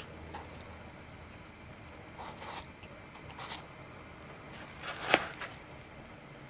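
Quiet workbench handling noises: a few soft scrapes and light taps as a small metal pick spreads epoxy on a servo connector in a plywood jig, with one sharp click about five seconds in.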